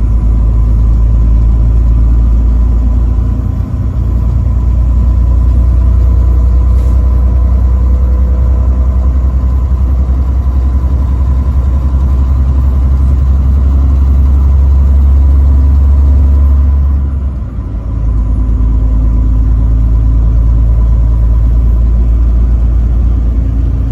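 Truck on the road: a loud, steady low engine and road rumble, dipping briefly twice.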